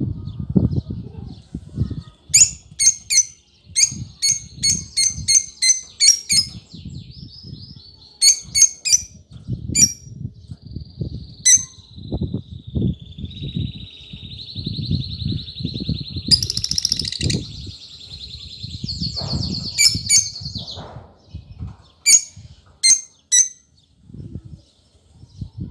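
Lovebirds chirping: clusters of sharp, high chirps, and a long warbling trill in the middle. Irregular low thuds run underneath.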